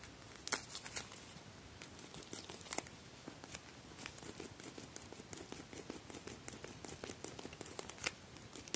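Vinyl gel ice pack filled with water-absorbing beads being squeezed and kneaded by hand: faint crinkling of the stiff, beach-ball-like vinyl skin with many small scattered clicks and crackles, and little squelching.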